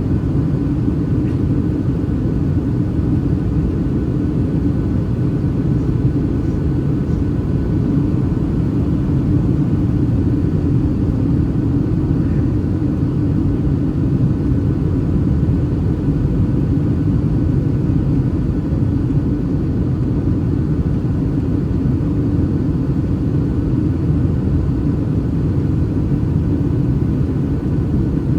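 Steady cabin noise of a Boeing 737-800 in flight, heard from a seat over the wing: the deep, even rumble of its CFM56-7B engines and airflow, with a faint high hum.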